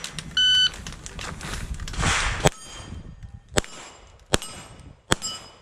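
Electronic shot timer's start beep, then four handgun shots roughly a second apart, each followed by the ring of a steel target plate being hit.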